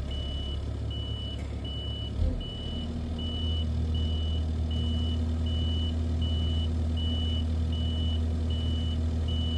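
A heavy vehicle's reversing alarm beeping steadily, a little under twice a second, over its engine running; the engine gets louder about two and a half seconds in, just after a brief thump.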